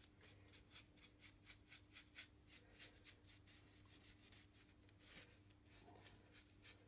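Faint, quick scratching of a paintbrush scrubbing wet slate-grey acrylic paint into carved foam, about four or five strokes a second, over a low steady hum.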